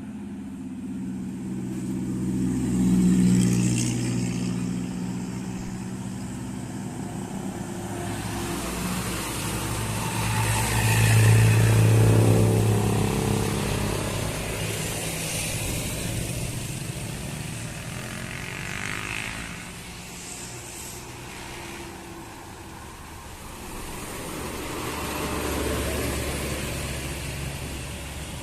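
Tour buses and other road traffic driving up a hill, engines pulling under load. The loudest passes come about 3 and 12 seconds in, with another swell near the end.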